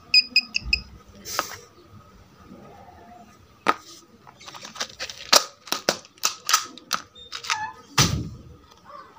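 Digital multimeter's continuity beeper giving four quick beeps as the probes bridge the horizontal output transistor's base and emitter, a sign the transistor is near-shorted. Then a run of sharp, irregular clicks and taps from the probes and meter being handled, the loudest near the end.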